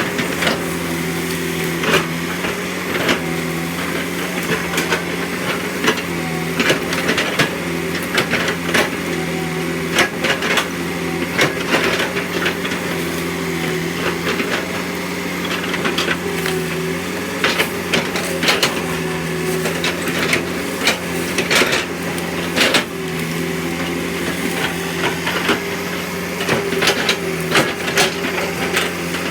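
Excavator engine running steadily, its drone dipping now and then under load, with frequent sharp knocks and clatter from the machine at work.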